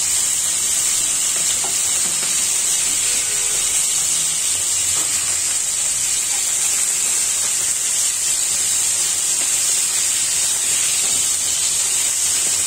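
Rohu fish pieces sizzling steadily in hot oil in a nonstick frying pan. A few faint taps and scrapes come from a metal slotted spatula turning the fish.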